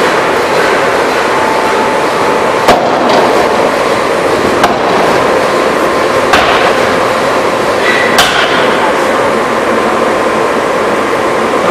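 Power forging hammer striking four sharp blows about two seconds apart, over a loud, steady machinery noise.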